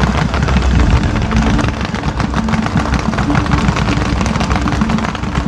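Fireworks going off in a dense, continuous barrage: many rapid, overlapping bangs and crackles over a steady low rumble.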